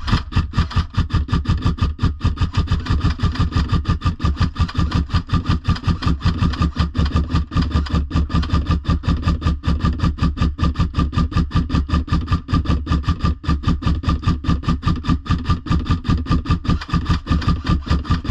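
A motor running steadily, with a fast, even throb of about seven pulses a second.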